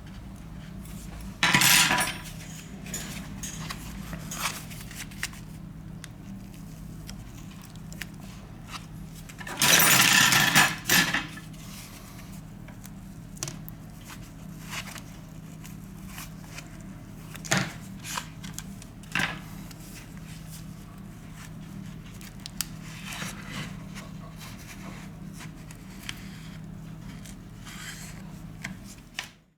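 Small repair tools clicking and scraping against an iPhone 7 being opened for a screen replacement, with two louder scrapes of about a second each, near the start and about ten seconds in, over a steady low hum. The sound cuts off just before the end.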